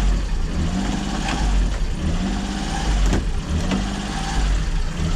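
Toyota Duet's engine idling unevenly, its revs rising and falling over and over about every second and a half. This is the hunting, stumbling idle the owner is chasing, and his work on the throttle body has not cured it.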